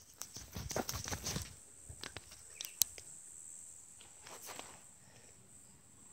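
Rustling and knocking of a phone being handled right at its microphone, dense for about the first second and a half, then a few clicks with one sharp click about three seconds in, and quieter after; a faint steady high-pitched tone sounds behind.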